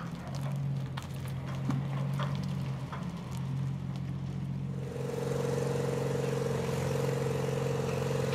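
A van's engine running as it pulls away with a loaded flatbed trailer that clicks and rattles. About five seconds in, this gives way to a truck engine running steadily with a steady higher hum over it.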